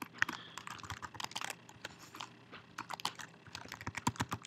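Typing on a computer keyboard: a quick, irregular run of key clicks as text is entered into form fields.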